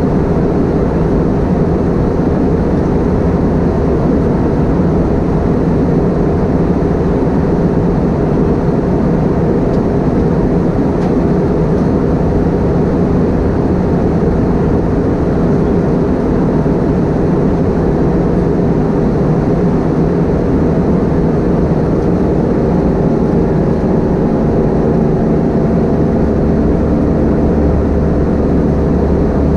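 Steady engine and airflow noise inside the passenger cabin of an Airbus A320-232 with IAE V2500 engines. A few steady hums come in more clearly during the last several seconds.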